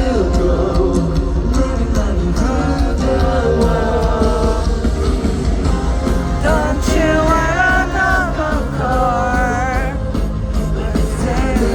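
Live pop-rock song: a male lead vocal over a full band, with a few held, wavering notes a little past the middle.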